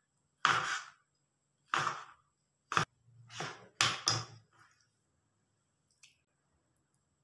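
Kitchen knife cutting food on a plastic chopping board: a few short slicing strokes and one sharp tap of the blade on the board, then brief scraping as the cut pieces are gathered up by hand.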